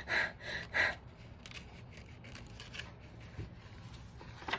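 A woman panting in quick, breathy huffs, acting out being out of breath, twice in the first second. After that only faint rustling, with one short sharp sound near the end.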